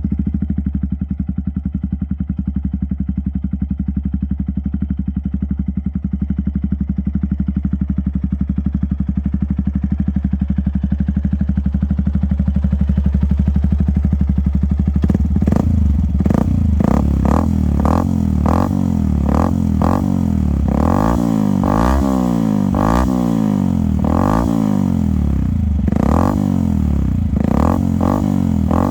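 Yamaha YZF-R125's single-cylinder four-stroke engine running through a LeoVince exhaust with the dB killer removed. It idles steadily, then from about halfway it is revved in repeated quick throttle blips, the pitch rising and falling with each.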